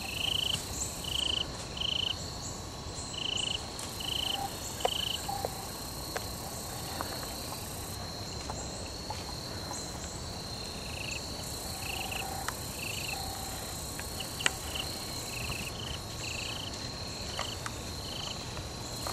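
Insects chirping outdoors: a steady high trill throughout, with a nearer caller giving short high chirps about two a second in runs, and scattered faint clicks.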